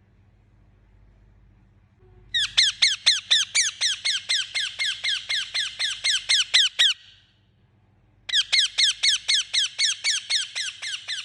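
Indian ringneck parakeet calling in two bouts of rapid, evenly repeated sharp calls, about five a second. The first bout starts about two seconds in and lasts some four and a half seconds, and the second begins after a pause of about a second and a half.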